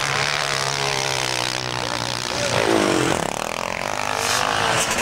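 Motocross bike engines revving on the track, with one engine's pitch dipping and then climbing again about halfway through.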